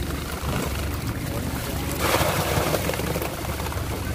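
Freshly caught chub mackerel tipped from a hand scoop net into a plastic-lined crate: a wet, rustling rush of fish and plastic about two seconds in, lasting about a second, over a steady low rumble.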